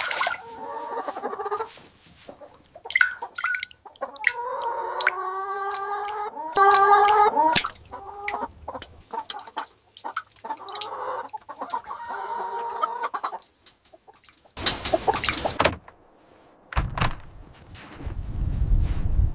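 Domestic hens clucking and squawking in several drawn-out bouts, with scattered knocks. A brief burst of loud noise comes about three-quarters of the way through, and a low rumble near the end.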